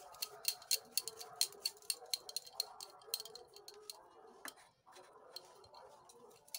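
Bangles clinking on the wrists in quick, irregular ticks as hands roll semolina dough into balls on a steel plate, about four ticks a second at first, then only a few.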